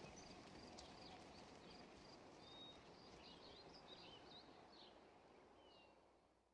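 Faint outdoor ambience with small birds chirping in short calls and brief whistled sweeps over a low steady hiss, fading out near the end.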